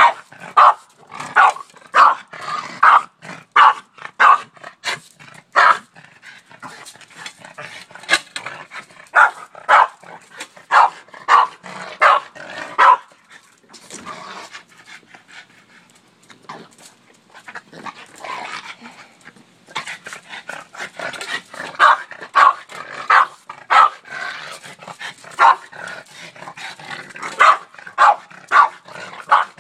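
Boston terrier barking in runs of short, sharp barks, about one to two a second, with a quieter lull near the middle. The dog is barking at a shovel.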